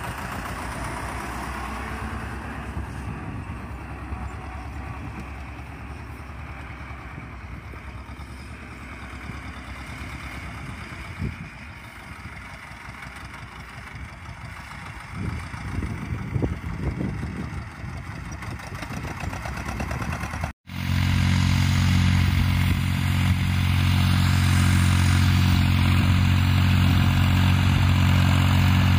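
Vladimirets T-25 tractor's two-cylinder air-cooled diesel working under load as it pulls a plough, at moderate level as the tractor draws away. About two-thirds of the way through the sound cuts abruptly to an Ursus C-360 3P's Perkins three-cylinder diesel, louder and steady, also pulling a plough.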